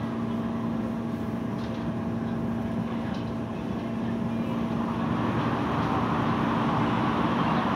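Running noise of a moving electric commuter train heard from inside the carriage: a steady rumble of wheels on the track under a constant hum. It grows louder about five seconds in.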